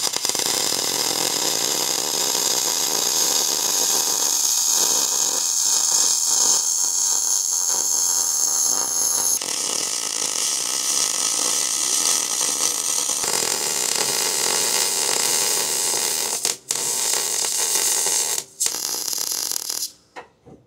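Wire-feed (MIG) welder arc crackling and hissing steadily while welding a turbo exhaust downpipe. The arc breaks off briefly twice near the end between beads, then stops.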